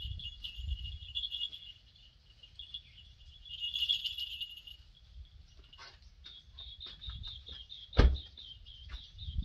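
Steady high chirping in the background, with a few light clicks and rustles, then about eight seconds in a car door shuts with one loud thud.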